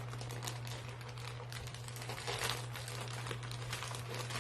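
Irregular crackling and crinkling of packaging being handled, over a low steady hum.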